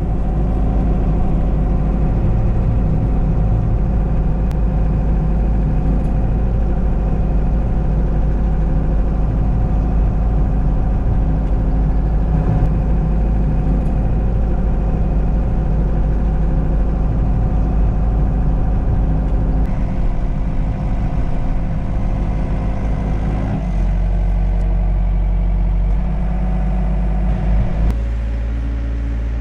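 Hyundai mini excavator's diesel engine running steadily under light load. Its note and loudness shift near the end as the working load changes.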